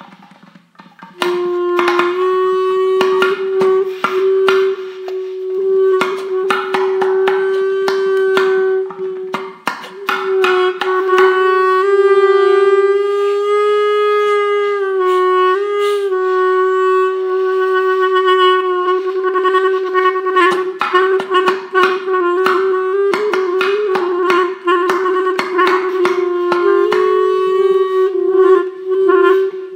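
Contemporary solo instrumental music: one long held mid-range note with overtones, wavering slightly in pitch, with many sharp clicks and taps over it. It starts about a second in.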